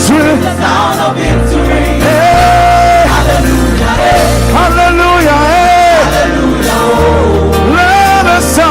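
Live gospel praise music: a band playing with a heavy bass line that shifts note every second or two, and a voice singing a sliding melody over it without clear words.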